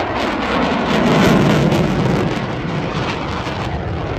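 F-15 fighter jet passing overhead, its twin Pratt & Whitney F100 turbofans making a loud, crackling jet roar. The roar peaks about a second in and then slowly fades as the jet climbs away.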